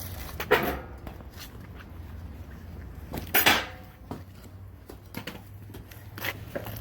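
Scattered knocks and scrapes of hand tools working on a clay furnace, with two louder, sharper strikes, one about half a second in and one about three and a half seconds in, over a low steady hum.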